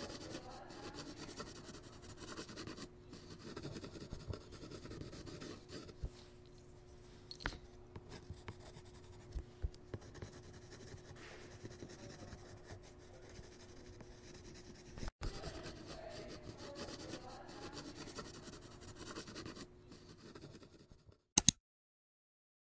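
Stylus drawing on an iPad screen: soft, uneven scratching and rubbing strokes. The strokes stop near the end, and two loud, sharp clicks follow close together.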